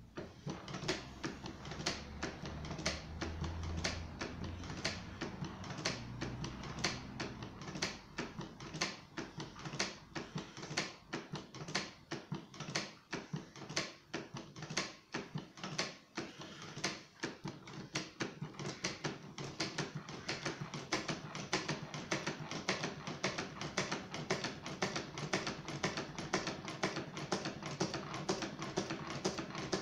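Homemade twin solenoid engine running after a hand spin of its flywheel: a steady rhythm of sharp mechanical clacks, a few a second, as the two solenoids pull in turn and drive the beams and crank. A low hum sounds under the clacks for the first several seconds.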